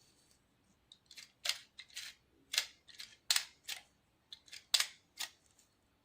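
Antique camera's mechanism worked by hand, giving a run of about a dozen sharp, irregular clicks and snaps over about four seconds.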